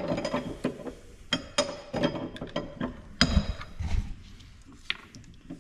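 Metal parts and hand tools clinking and knocking on a workbench, a string of irregular short clicks, some with a brief metallic ring.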